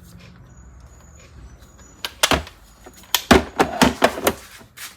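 A series of sharp clacks and knocks of hard tool parts being handled, a few at first, then a quick cluster of louder ones about three to four seconds in.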